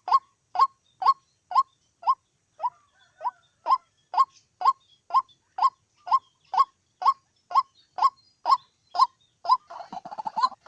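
White-breasted waterhen calling, a short 'cuốc' note repeated evenly about twice a second. Near the end it breaks into a faster, denser chattering.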